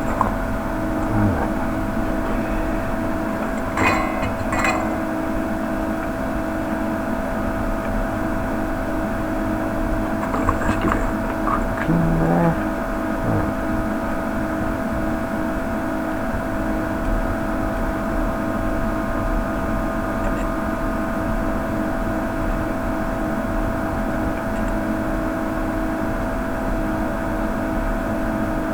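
Steady electric whirring hum, like a small fan or motor, with a few light taps and clicks from handling the circuit board and tools while soldering.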